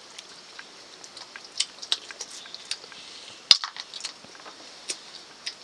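People eating rice by hand from steel plates: scattered small clicks and scrapes of fingers and metal plates, with one sharper clink about three and a half seconds in.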